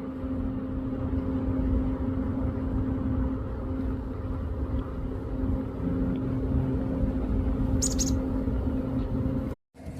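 Steady low rumble with a constant hum, like a running motor. A brief high chirp comes about eight seconds in, and the sound cuts out for a moment just before the end.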